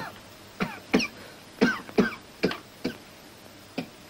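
A person coughing: a run of about eight short, harsh coughs, the last after a brief pause.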